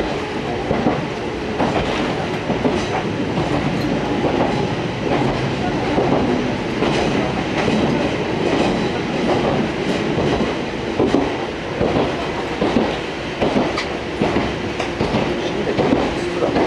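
Fukui Railway Fukubu Line train running at speed, heard from inside the passenger car: a steady rolling rumble, with the wheels clacking over rail joints about once a second.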